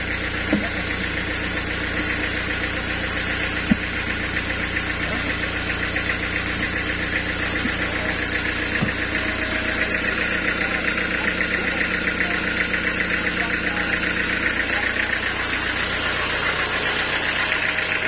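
A sawmill engine running steadily with a fast knocking beat. A couple of sharp knocks stand out, about four seconds in and again about nine seconds in.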